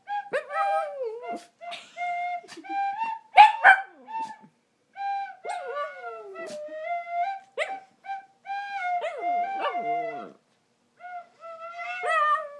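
A flute plays a melody of short held notes while a shih tzu howls along, its howls sliding down in pitch. A couple of sharp yips about three and a half seconds in are the loudest sounds.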